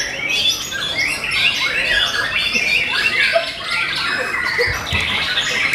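White-rumped shamas (murai batu) singing in cages, several at once: a dense, unbroken chorus of fast whistles and chattering phrases.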